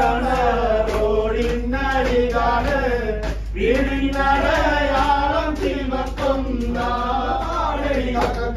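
A group of men singing a song together, their voices carrying on without a break over a steady low hum.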